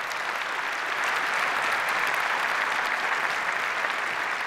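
Audience applauding, a steady clatter of many hands that swells a little in the middle.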